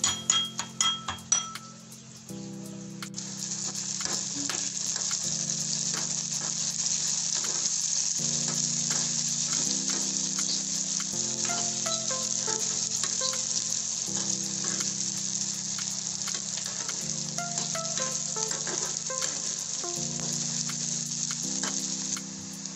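Chopped onions frying in oil in a steel kadai, a steady sizzle as they are stirred with a spatula. It opens with a few clinks of a pestle in a metal mortar before the sizzle starts about three seconds in.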